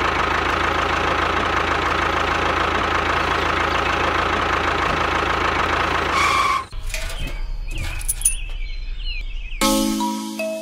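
A steady engine-like running sound that stops abruptly about two-thirds of the way in. Faint bird-like chirps follow, and chiming mallet music starts near the end.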